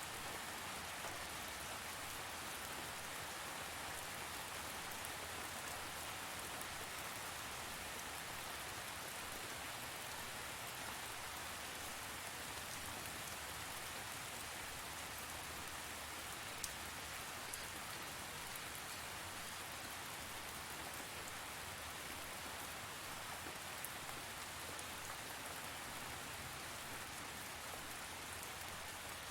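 Steady rainfall, a continuous even hiss of rain with a few distinct drops ticking out now and then.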